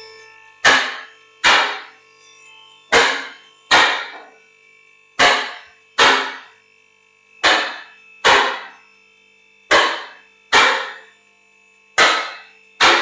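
Two-post car lift raising a car: its safety latches clack in pairs, two metallic clacks about a second apart, repeating about every two seconds, six pairs in all, each ringing briefly, over the faint steady hum of the lift's motor.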